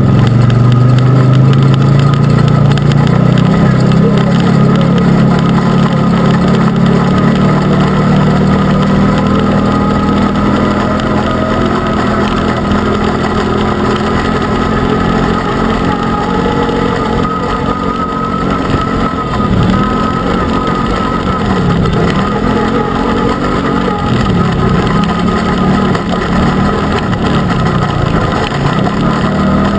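Arctic Cat Wildcat UTV engine running while driving, heard from on board. The pitch holds fairly steady at first, then in the second half dips and climbs again several times as the throttle is let off and reapplied.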